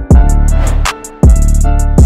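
Background music with a steady drum beat: heavy bass hits about a second apart under quick high ticks.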